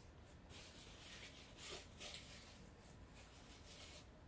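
Faint rustling of a paper napkin being unfolded and handled, in several short bursts.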